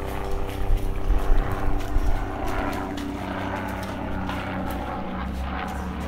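A helicopter's steady, low engine-and-rotor drone, with a few thumps in the first two seconds.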